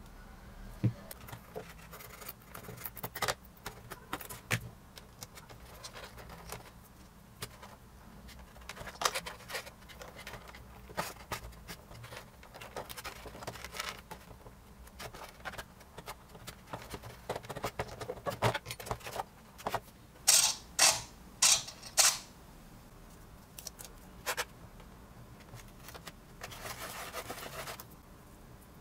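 Small clicks, taps and scrapes of hands handling a thin steel pushrod wire, a micro servo and pliers on a foam and balsa model boat hull. Four short, loud scratchy sounds come close together about two-thirds of the way through, and a softer hiss near the end.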